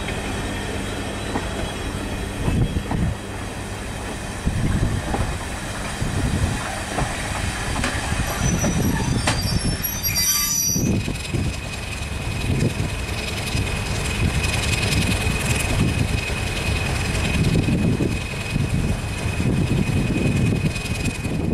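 Passenger coaches rolling slowly past on jointed track, their wheels knocking over the rail joints. A few brief high wheel squeals come around the middle, then a steady high flange squeal runs through the second half.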